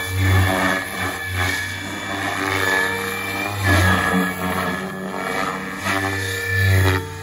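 SAB Goblin Kraken RC helicopter with a three-blade main rotor in aerobatic flight: a steady low rotor hum under a high motor and gear whine, swelling loud every one to three seconds as the blades bite through flips.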